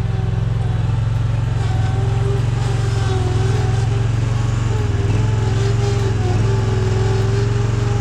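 Engine of small earth-moving equipment running steadily under load, a deep hum with a whining tone above it that wavers slightly in pitch.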